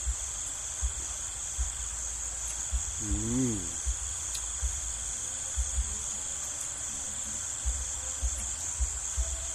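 Crickets trilling continuously in a steady, high, unbroken chorus. A short hummed voice sound rises and falls about three seconds in, and there are scattered soft low knocks.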